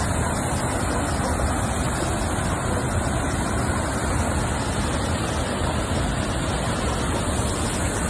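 Reservoir water pouring over a dam's concrete spillway into churning white water below: a steady rush of water from a dam filled past its limit by heavy rain.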